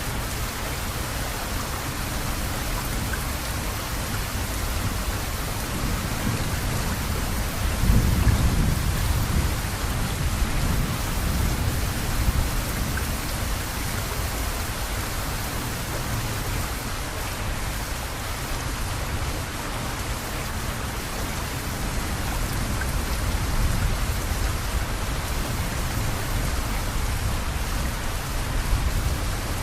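Steady rain falling with rolling thunder; the thunder rumbles low throughout and swells to its loudest about eight seconds in.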